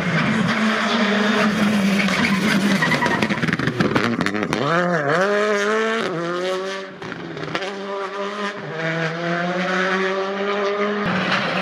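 Škoda Fabia Rally2 rally car's engine under hard acceleration, its pitch climbing through the gears. About four to five seconds in the pitch drops and swoops back up as the throttle is lifted and reapplied, with a burst of sharp pops and cracks, then it pulls hard and climbs again.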